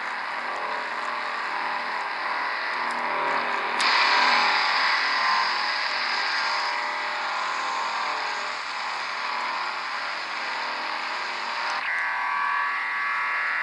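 A Degen DE1103 shortwave receiver in lower-sideband mode, tuned near 10312 kHz, plays a harsh, buzzing, hiss-like signal. The signal gets suddenly brighter and louder about four seconds in. Near the end it switches abruptly to a narrower, more tonal buzz.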